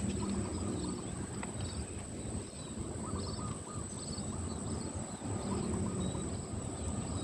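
Outdoor ambience in farm fields: short bird chirps repeating over a steady low rumble, with a thin high steady tone behind.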